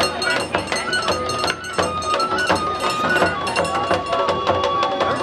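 Japanese festival music for a lion dance: a flute melody with held notes over a steady beat of drum and metallic percussion strikes.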